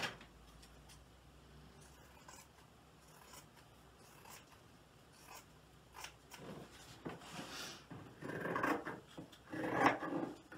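Scissors cutting crisp cotton fabric: a few faint clicks at first, then a run of snips with the cloth rustling, growing louder over the last few seconds.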